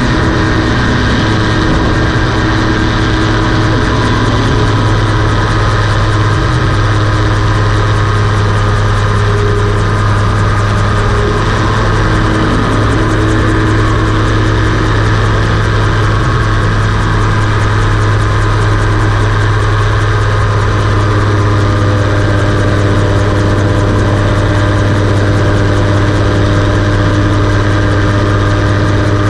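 Rotax 582 two-stroke twin engine of a float-equipped gyroplane running steadily at high power, driving its pusher propeller through a water takeoff and climb-out.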